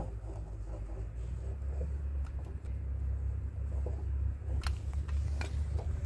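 A steady low rumble, with a few sharp clicks from a caulking gun being worked and released near the end as silicone is pressed into a plastic drum's bung hole.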